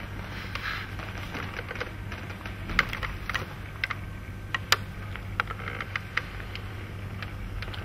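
Room tone with a steady low hum and a scattering of short sharp clicks and taps, the two loudest about three and five seconds in.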